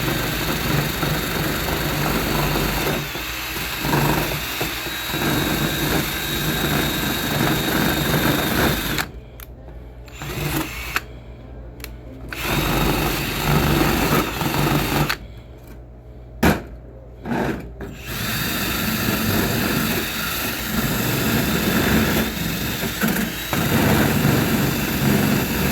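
Electric drill with a wire brush attachment running against a rusty steel bench vice, scrubbing off loosened rust with a steady whine. It stops twice for a few seconds, about nine and fifteen seconds in, then starts again.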